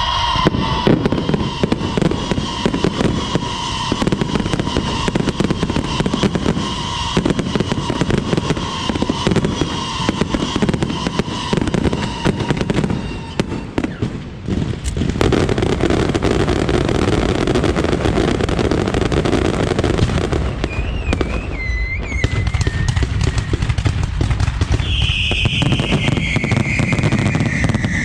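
Aerial fireworks display: a dense run of crackling and bangs, with long whistling tones that slowly drop in pitch near the start and again near the end, and a wavering whistle in the middle.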